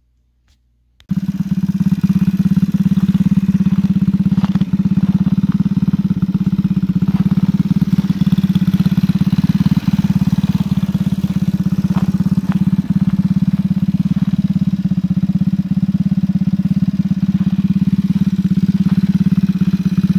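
49cc four-stroke motorized-bicycle engine with a big-bike exhaust pipe, described as so loud, running steadily; it cuts in abruptly about a second in and keeps an even beat.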